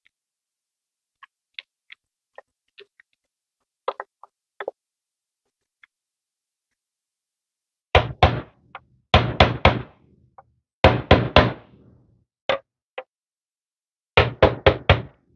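Light clicks of small parts being handled, then a hammer knocking on a white rod held in a hole in the body of a Tonka toy van, driving it in. The knocks come in quick runs of three to five blows, with single knocks between.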